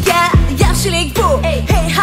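Uzbek pop song performed live and amplified: a steady drum beat and bass under a bending, ornamented melody line.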